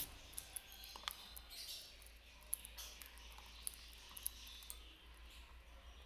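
Faint, irregular small clicks and ticks from pineapple green-cheeked conures feeding at a plastic seed bowl in their wire cage: beaks working seed and feet shifting on the bowl's rim.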